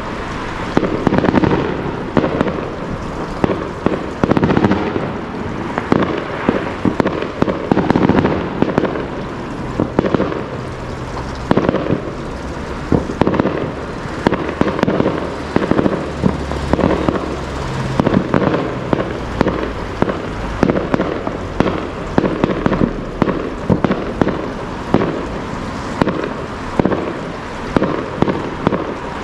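Fireworks display: a continuous barrage of bangs and crackles, several a second, without a pause.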